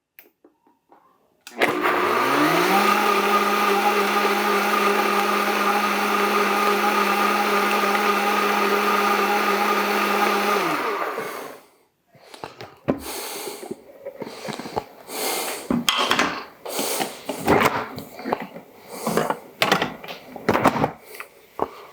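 Countertop blender motor spins up about a second and a half in, runs steadily for about nine seconds puréeing a warm cooked sauce, then winds down. After it stops comes a string of irregular kitchen clatters and knocks.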